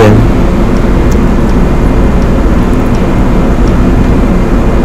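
Loud, steady drone of running ship's machinery, with a low hum under a dense noise.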